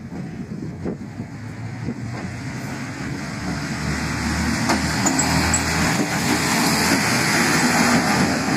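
A diesel railcar approaching and growing steadily louder, its engine humming low under the rising rumble of its wheels on the rails, with a few sharp clicks.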